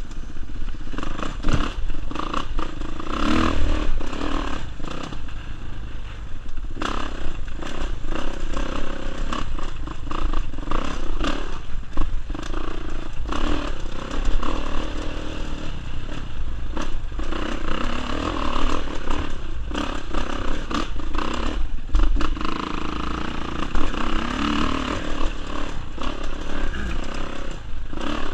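Kawasaki KX450 four-stroke single-cylinder dirt bike engine running hard on a rough trail, its pitch rising and falling as the throttle opens and closes. Frequent knocks and rattles come from the bike over the uneven ground.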